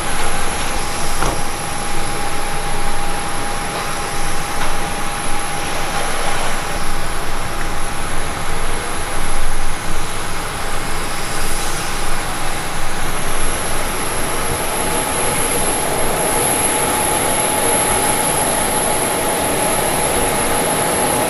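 Jet aircraft engine noise: a steady, loud rush with a constant high whine.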